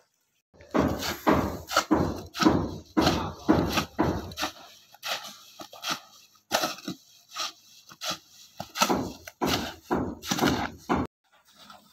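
A hoe chopping and dragging through wet cement-and-sand mortar in a mixing bed, about two strokes a second. The strokes stop suddenly near the end.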